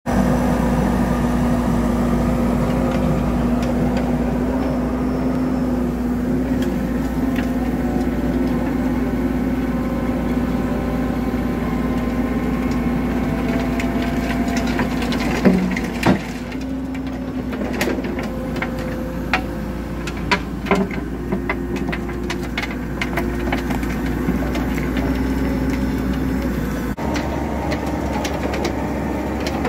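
CAT 308 mini excavator's diesel engine running steadily with a low hum, while the Gyru-Star screening bucket works soil and mulch. Scattered sharp knocks and rattles come through in the second half.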